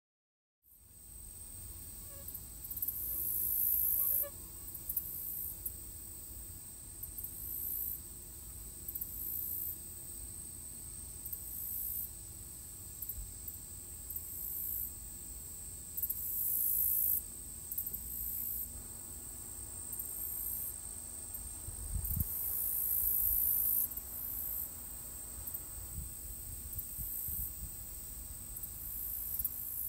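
Outdoor insect chorus: high-pitched buzzing that swells in repeated pulses a second or two long over a steady high whine, with low wind rumble on the microphone.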